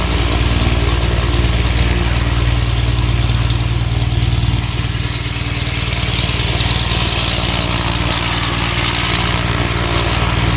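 Zivko Edge 540 aerobatic plane's six-cylinder Lycoming engine running at low power on the ground, propeller turning: a steady low, evenly pulsing throb that dips slightly about halfway through.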